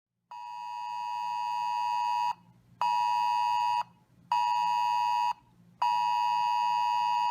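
Emergency alert tone beeping: one steady high pitch, repeating about one second on and half a second off. The first beep, after a moment of silence, lasts about two seconds and grows louder.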